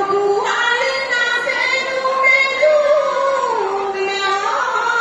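A woman singing a melodic line in long held notes that step up and down in pitch.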